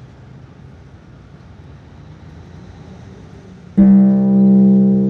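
Background film score: a faint low hum, then about four seconds in a sudden loud, low plucked-string note that rings on and slowly fades.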